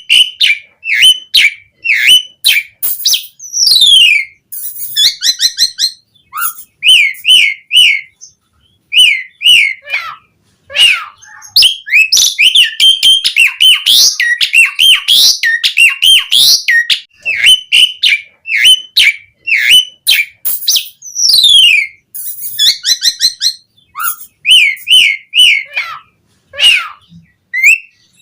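Jalak suren (Javan pied starling) singing loudly: a long, varied song of clear whistles, rising and falling glides and rapid chattering runs in short phrases with brief pauses, the chatter densest about halfway through.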